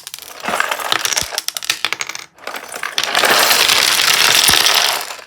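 Plastic Lego pieces clattering together, first as a run of small clicks, then, from about three seconds in, as a long loud clatter of many pieces spilling and scattering.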